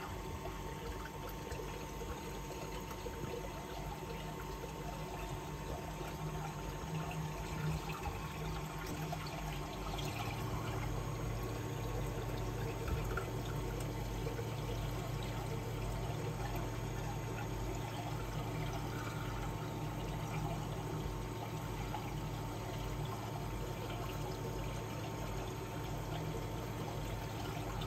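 Aquarium filtration running: steady water flow with a constant pump hum. A deeper hum comes in about ten seconds in.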